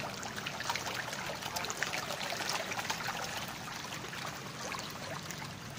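Pond water splashing and churning as a dense crowd of hungry fish jostle at the surface for food: many small splashes over a steady wash of water.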